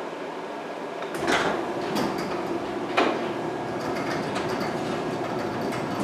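Electric garage door opener starting about a second in and raising a sectional garage door: steady running of the opener and the door rolling up its tracks, with a sharp clack as it starts and another about three seconds in. No bang is heard, which is the sign that the door's earlier banging has been fixed.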